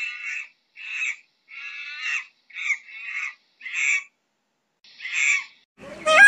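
A run of about seven short, harsh animal calls, roughly one every 0.7 s, then near the end a male Indian peafowl's loud, wailing call begins, falling in pitch.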